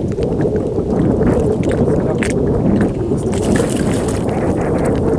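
Water splashing and dripping as a cast net is worked at the side of a wooden boat, with scattered small splashes and a bigger splash late on, over a steady wind rumble on the microphone.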